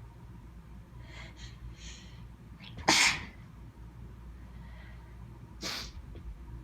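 A person sneezing in a slow, teasing fit. A few breathy catches build up, then one loud sudden sneeze comes about three seconds in, followed by a shorter, quieter burst near the end.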